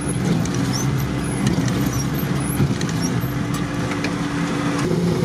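Stock UAZ's engine running steadily, heard from inside the cabin as an even low hum, with faint high-pitched squeaks and ticks scattered through it.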